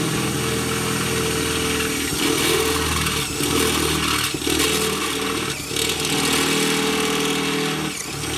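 Power drill running a step drill bit through a steel Honda oil pan, enlarging a pilot hole. The motor runs steadily with short catches and dips every second or so as the bit cuts the steel, and the drill stops abruptly at the very end.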